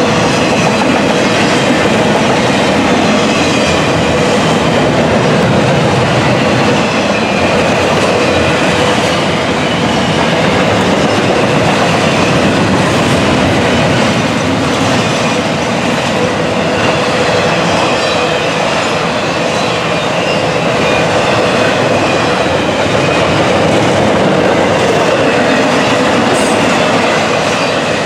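Freight train of intermodal trailers and containers rolling past close by. Steel wheels make a steady, loud rolling noise on the rails with clicking over the joints.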